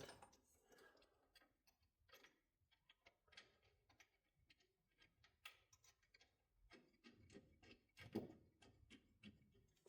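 Near silence with faint, scattered small metal clicks as a nut and lock washer are fitted onto a suspension bolt by hand. There is a slightly louder click about eight seconds in.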